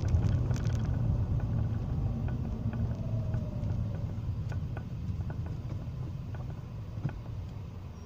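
Low, steady engine and road rumble of a car driving, fading out gradually.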